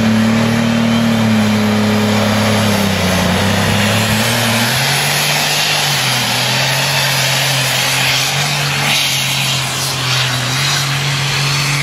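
Case IH pulling tractor's engine running at full power as it drags the weight-transfer sled down the pulling track. Loud and continuous, its note shifts in pitch a few seconds in and then holds steady.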